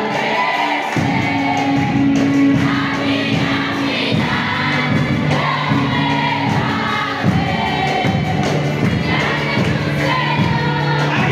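A choir singing a worship song over instruments playing held low notes.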